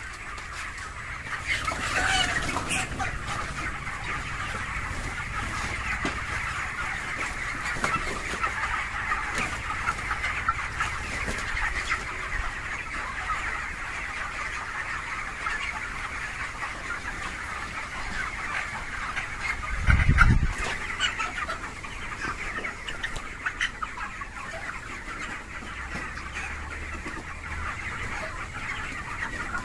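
A flock of broiler chickens clucking and chattering together continuously, with one brief low thump about twenty seconds in.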